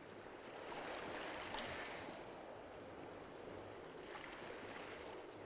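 Sea ambience of wind and waves washing around a sailing ship, swelling about a second in and again about four seconds in.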